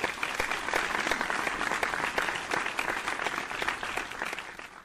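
Crowd applause: many hands clapping in a dense, even wash that fades out near the end.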